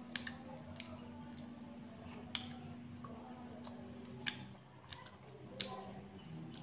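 Wet mouth clicks and smacks from chewing small orange segments: about five sharp clicks, a second or two apart, over a low steady hum.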